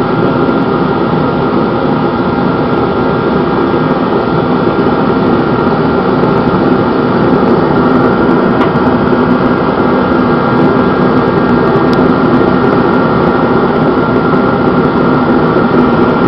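Heatstar 125,000 BTU kerosene forced-air (torpedo) heater running steadily with the burner lit: its fan and air pump make an even rush of air with a few steady tones over it. The flame is burning a little low.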